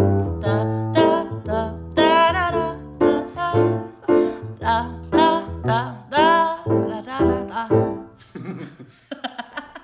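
Woman singing with grand piano accompaniment, the voice wavering on held notes. The music dies away about eight seconds in, followed by a few short sharp clicks.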